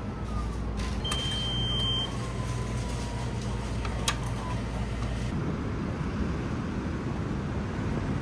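Steady low rumble of a vehicle in motion, with a faint whine that slowly falls in pitch. A single short high beep sounds about a second in, and the low hum eases about five seconds in.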